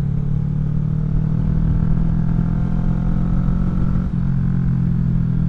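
Kawasaki Vulcan 650 S parallel-twin running through a CS Racing aftermarket exhaust with its decibel-killer baffle removed, at a steady cruise. The engine note rises slightly, then dips briefly about four seconds in.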